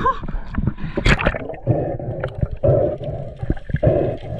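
Water gurgling and sloshing around an action camera at and just below the sea surface, in uneven bursts about once a second. A short laugh comes at the very start.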